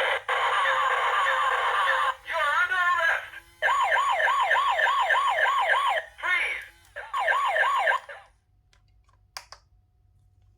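Electronic siren sound effects from a toy's small speaker. A warbling wail gives way to quick up-and-down sweeps of about three a second, which cut off about eight seconds in, followed by a single click.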